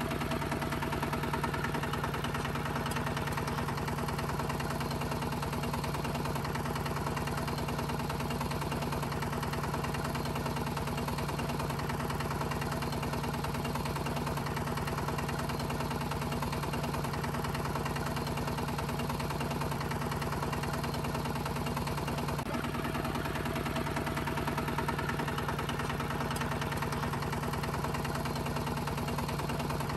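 Motor of a DIY mini tractor running steadily, a constant mechanical hum with a brief hitch about twenty-two seconds in.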